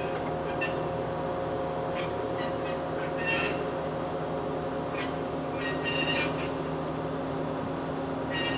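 Marvel 81A vertical band saw running in its automatic cycle: a steady machine hum with several held tones, broken by short high-pitched chirps every second or two.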